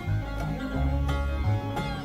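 Instrumental background music led by plucked strings, over a moving bass line.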